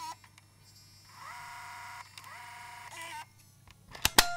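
Sony HC-62 MiniDV camcorder's tape-loading mechanism whirring in two short spells as the cassette carriage moves, then two sharp clicks near the end as the cassette compartment snaps shut.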